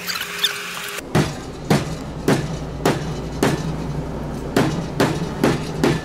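A run of sharp knocks about a second in, roughly two a second and a little quicker near the end, over a low steady hum.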